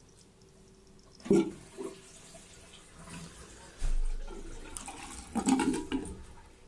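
Water running from a bathroom tap into a ceramic sink, with a sharp louder noise about a second in and a louder stretch of splashing or knocking near the end.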